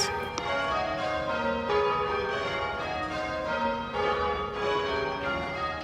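Church tower bells rung in rounds by ringers pulling the bell ropes: a steady sequence of bell strikes, one after another, each note ringing on into the next.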